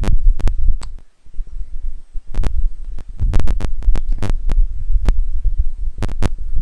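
Irregular clicks and low thumps from handwriting on a device close to the microphone, with a quieter pause about a second in.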